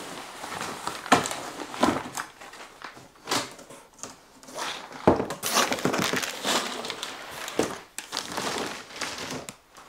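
Clear plastic protective film crinkling and rustling as long parts are handled and lifted out of a cardboard box, with cardboard scraping and a sharp knock about five seconds in.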